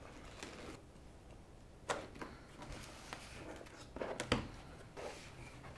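Camera box packaging being handled: scattered light taps and knocks with soft rustling, the loudest knock a little past four seconds in.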